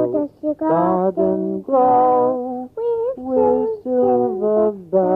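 Voices singing short phrases with held and sliding notes, broken by brief pauses.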